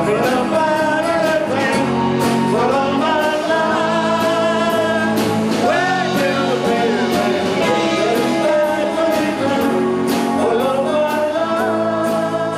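Live rock-and-roll band: a male lead vocal sung over electric guitars, bass and a steady drumbeat.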